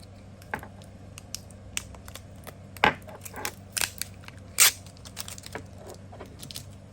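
Packing tape being cut and pulled off foam packaging: scattered clicks and rustles, with two louder rips about three and four and a half seconds in.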